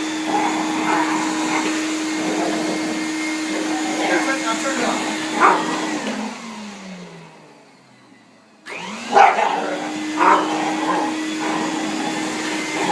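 A vacuum cleaner runs with a steady hum. About six seconds in it is switched off and its motor winds down, falling in pitch to a stop. About two seconds later it starts again and climbs back to speed. A dog barks at it, loudest just before it shuts off and twice after it restarts.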